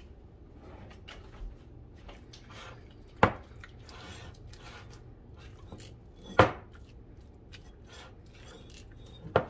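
Softened butter being worked into a garlic scape mixture in a mixing bowl: small scrapes and clicks of the utensil, with three sharp knocks about three seconds apart.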